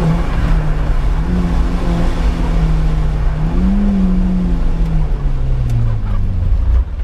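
Opel Corsa C GSi rally car engine under load. Its pitch holds high, rises briefly about three and a half seconds in, then falls steadily as the revs drop, with a short dip in level near the end.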